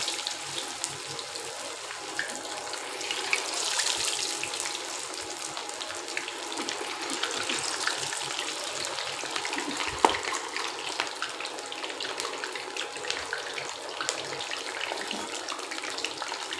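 Battered sankara (red snapper) fish pieces deep-frying in hot oil in a kadai: a steady sizzle dense with small crackles as the freshly added pieces give up their moisture. A single sharp click stands out about ten seconds in.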